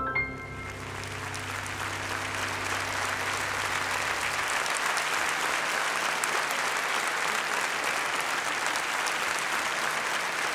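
Large concert audience applauding, swelling over the first couple of seconds and then holding steady, while the last low notes of the piano and orchestra ring out and fade during the first few seconds.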